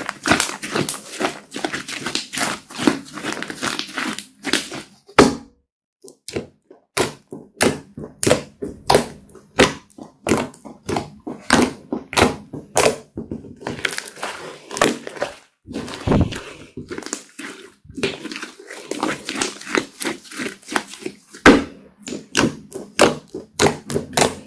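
Thick, glossy slime being poked and pressed with fingertips, giving a rapid, irregular stream of sticky clicks and pops, with a short pause about five seconds in.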